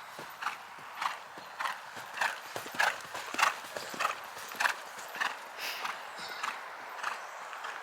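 A ridden horse's hoofbeats in an even rhythm of roughly one and a half to two strikes a second, over a steady background hiss.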